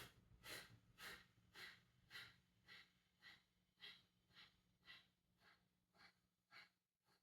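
Kapalabhati breathing: a steady run of short, forceful exhales puffed out through the nose by snaps of the belly, about two a second, faint throughout.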